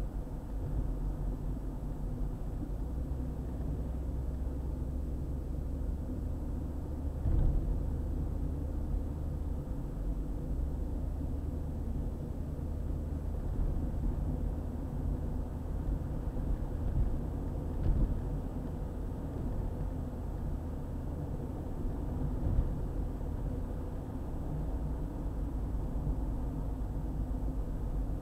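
Car driving on a highway: a steady low rumble of road and engine noise, with three brief thumps along the way.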